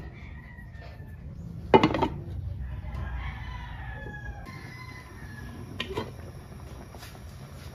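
Roosters crowing in the background, several long wavering calls. About two seconds in comes a loud sharp clank of cookware. Near six seconds a lighter clink sounds as the glass pot lid is lifted.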